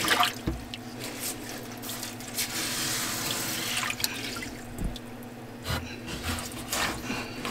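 Water dripping and splashing in an aquarium as hands work in the tank, with a few light knocks about half a second in and near five and six seconds.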